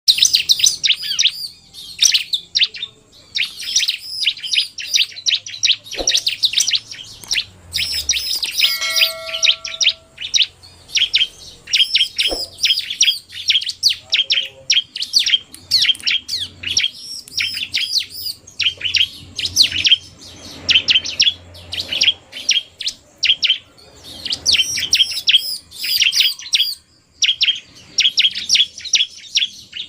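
Bar-winged prinias (ciblek) chirping fast and without pause: the male's 'narung' song mixed with quick female calls, a high-pitched rapid string of notes.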